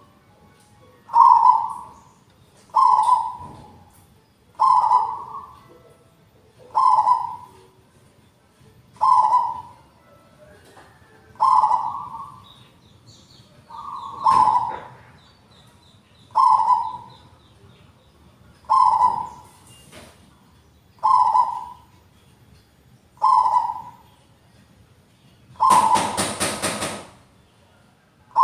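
A local zebra dove (perkutut) cooing its song, one short call about every two seconds, about a dozen in all. Near the end a louder, noisier burst of about a second and a half comes over one of the calls.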